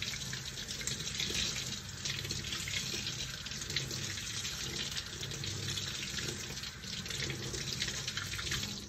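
Water running steadily from a tap into a sink as a sock is rinsed under the stream.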